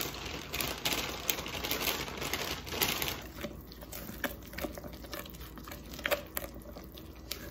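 Waffle batter being stirred in a mixing bowl with a spatula: a busy run of scraping and small taps for about the first three seconds, then slower, sparser scrapes and knocks against the bowl.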